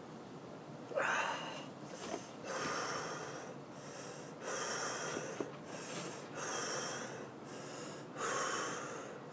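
A man breathing hard and noisily, five heavy breaths about two seconds apart, as he reacts to the burn of a 13 million Scoville chilli extract.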